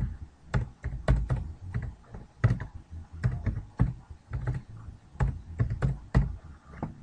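Typing on a computer keyboard: a run of separate keystrokes at an uneven pace, about three a second.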